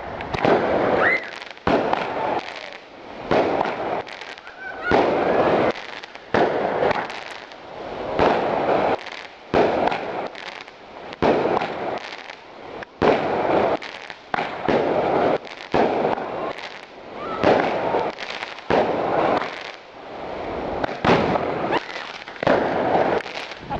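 Fireworks going off in quick succession: a sharp bang every second or two, each trailed by a crackling hiss.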